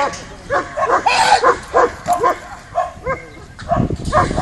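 Dog barking in quick repeated barks, two to four a second, agitated barking during protection training on the helper, with a rougher, noisier burst near the end.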